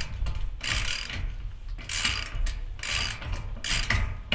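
Socket ratchet wrench clicking in short repeated strokes, about one a second, tightening lock nuts onto bolts.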